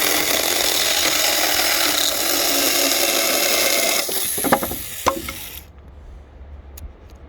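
A 21 V cordless mini pruning chainsaw running and cutting through wood. It eases off about four seconds in and cuts out near six seconds, with a couple of knocks near the end.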